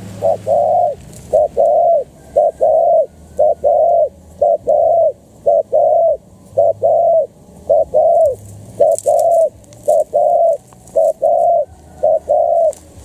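Spotted dove cooing: a short note followed by a longer one, repeated about once a second in a steady run of a dozen or so calls.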